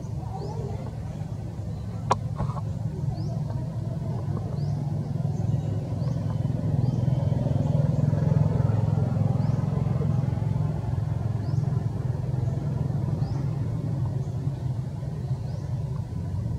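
Low rumble of a passing motor vehicle, swelling to its loudest about halfway through and easing off again. Faint short high chirps repeat about once a second, and there is a single sharp click about two seconds in.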